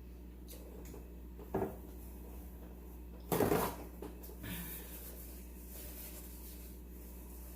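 A few short knocks and rustles of seafood and dishes being handled while eating, the loudest lasting about half a second, over a steady low hum.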